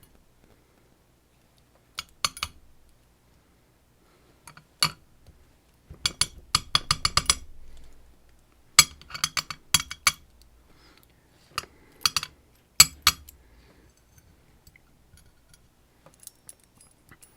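Small metal pins and parts of a disassembled Dom RS8 lock clinking and rattling against each other and a hard surface, in several short bursts of quick clicks with pauses between.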